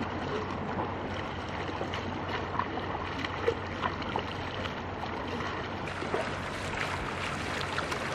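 Small waves washing in the shallows of a sandy beach, a steady wash with a few faint splashes.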